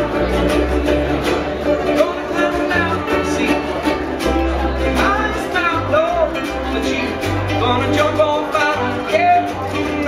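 A group of ukuleles playing a song together, with a man singing lead over them and a low bass line underneath.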